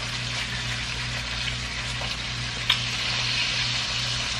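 Steady background hiss with a low electrical hum, broken once by a single small click about two-thirds of the way through.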